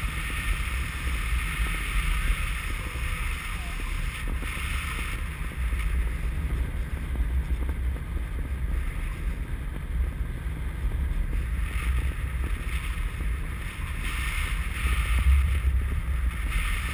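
Wind on an action camera's microphone in paraglider flight: a steady low rumble with a higher rushing hiss that fades in the middle and comes back near the end.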